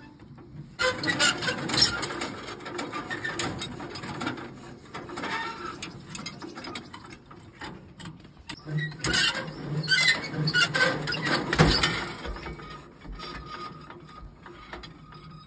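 Irregular metallic clinking and scraping as a hand-crank handle and tool are worked at the front of a Sartaj tractor.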